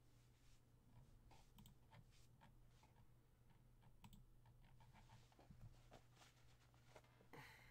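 Faint, irregular clicks of a computer keyboard and mouse, over a low steady hum.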